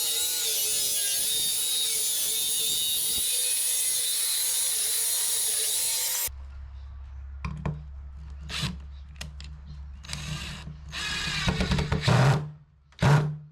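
Power drill driving screws into pallet wood: a long run that stops abruptly about six seconds in, then several short bursts.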